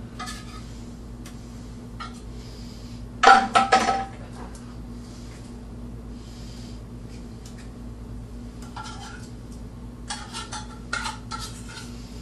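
Metal clinks and scrapes as drained canned tuna is worked out of the can into a mixing bowl of cooked noodles. One loud ringing clink comes about three seconds in, and lighter taps follow near the end.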